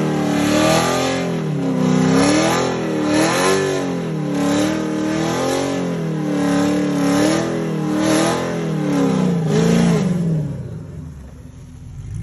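6th-gen Camaro with a ten-speed automatic making a full-throttle drag-strip pass. The engine note climbs and drops back again and again as the transmission shifts up through the gears, then fades away about ten seconds in as the car runs off down the track.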